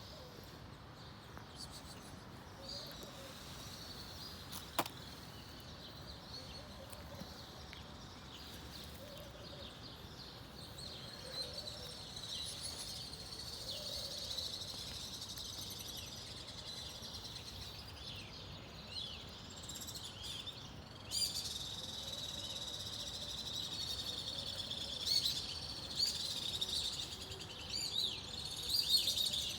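Birds chirping and twittering in a dense morning chorus of short high calls, which grows louder about two-thirds of the way through. One sharp click about five seconds in.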